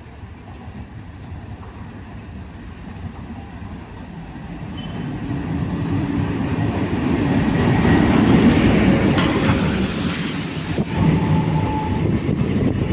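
ALCo WDM3D diesel-electric locomotive and its passenger coaches running in on the track, the engine's rumble and the rolling train growing louder over the first eight seconds and staying loud as it draws alongside.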